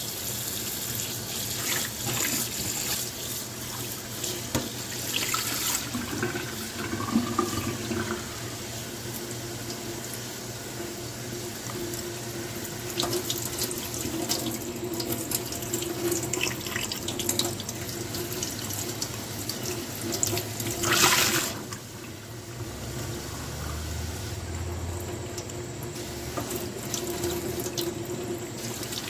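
Water running steadily from a tap as a soapy sponge is rinsed under it. About three-quarters of the way through there is a brief, louder rush of water.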